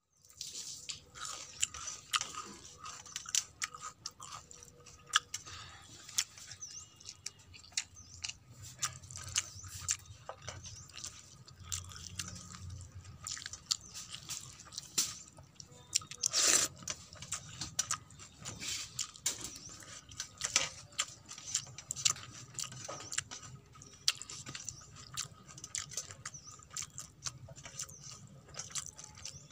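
Close-miked eating sounds: fingers squish and mix watery panta bhat on a steel plate, with crunchy chewing and many sharp little clicks. One louder crunch comes a little past halfway.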